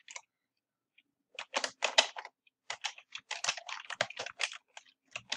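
Typing on a computer keyboard: after a brief pause, a quick, uneven run of key presses starts about a second in.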